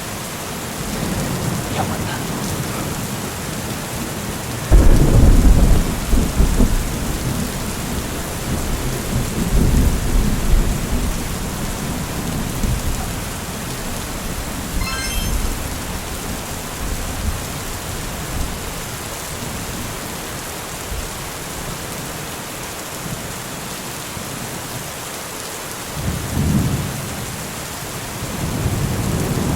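Steady rain with thunder: a loud rumble of thunder about five seconds in that fades away over several seconds, and a shorter rumble near the end.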